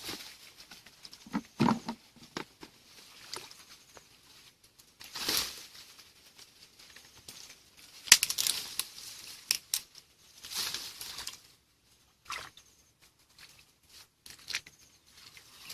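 Irregular crackles, snaps and splashes of sticks and roots being pulled out of muddy shallow water, with a sharp crack about eight seconds in.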